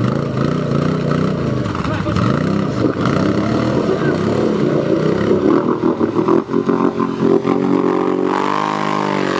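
ATV engines revving up and down repeatedly, the pitch rising and falling about once a second, with a higher rev near the end.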